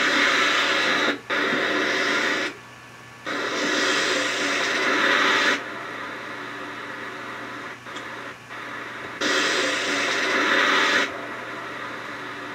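Loud static-like hiss over a steady low hum, switching abruptly on and off several times between loud stretches and quieter humming gaps, with a brief dropout about a second in.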